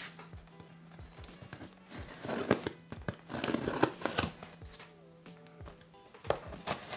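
Pocket knife slitting the packing tape on a cardboard shipping box and the flaps being pulled open: tearing, scraping and crinkling with sharp clicks, busiest from about two to four and a half seconds in. Soft background music plays underneath.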